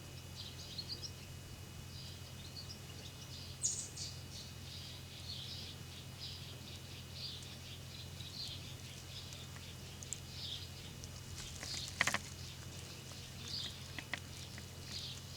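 Small birds chirping repeatedly in short, high calls over a steady low hum, with one sharp click about twelve seconds in.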